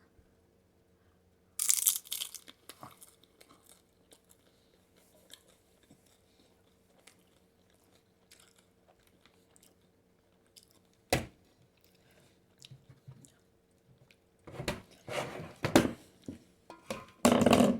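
A person biting and chewing crunchy food: a loud crunch about a second and a half in, a single sharp click around the middle, and a run of crunching bites near the end, with quiet stretches of chewing between. A faint steady hum underneath.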